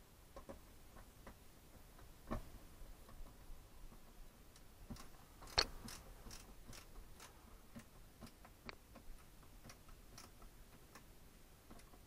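Hand screwdriver turning screws into the plastic handle mount of a shop vac lid: faint, irregular clicks and ticks, with a louder click about two seconds in and the sharpest one about five and a half seconds in.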